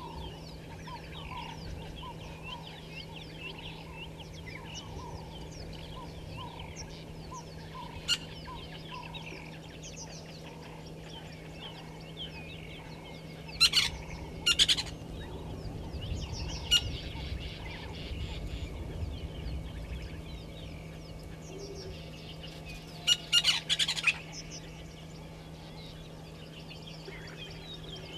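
Many wild birds chirping and calling together in African bushveld, with a repeated lower call in the first half and a few loud, sharp bursts around the middle and near the end. A steady low hum runs underneath.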